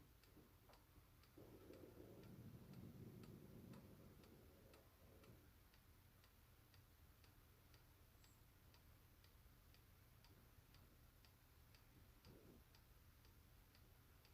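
Faint ticking clock, a steady even tick about twice a second, with a low rumble for a few seconds near the start.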